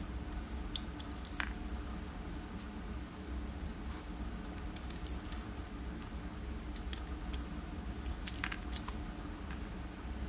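Scattered small metallic clicks and taps as the pins and tools of a disassembled pin tumbler lock cylinder are handled, with a louder click about a second in and two more near the end, over a steady low hum.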